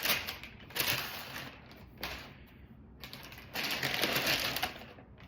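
Rustling and crinkling of the paper wrapping inside a sneaker box as the shoes are uncovered and handled, in several bursts with a longer one near the end.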